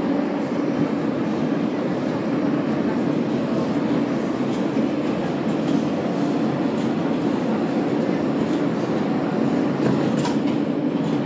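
R143 subway car running at speed, heard from inside the car: a steady noise of wheels on rail, with a few clicks from the track and a sharper click about ten seconds in.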